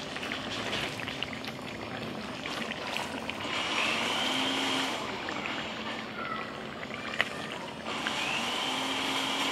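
Pork pieces bubbling and sizzling in their own juices in a pot, with the clicks and scrapes of a wooden spoon stirring them. A higher steady whine comes in twice, about three and a half seconds in and again near the end.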